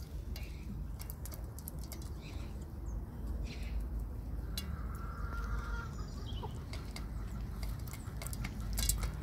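Aseel chickens pecking grain from a metal pan: scattered sharp clicks of beaks striking the pan, over a steady low rumble. About halfway through, a chicken gives a short held call lasting a second or so.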